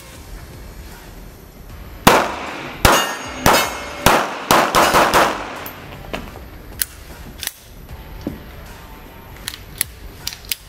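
A Browning pistol in 9 mm short (.380 ACP) firing a quick string of about eight shots that ring in the range. A few light metallic clicks of the pistol being handled follow.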